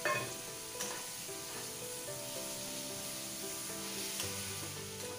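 Chopped tomatoes and masala sizzling in hot oil in a pan while a metal spatula stirs them, scraping the pan, with a few sharp knocks of the spatula against the pan.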